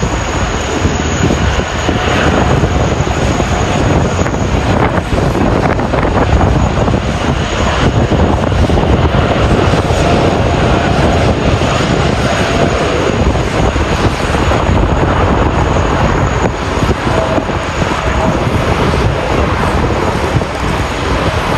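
Boeing 787-9 airliner departing, its jet engines at high thrust: a loud, steady rush of engine noise with a faint held tone now and then.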